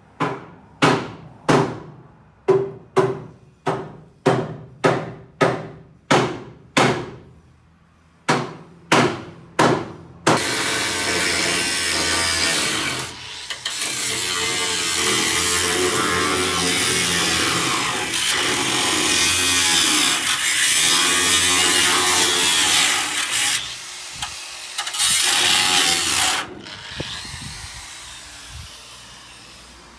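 Workshop tool noise: about eighteen sharp knocks, roughly two a second, then a power tool running steadily for about sixteen seconds, cutting out briefly twice before it stops.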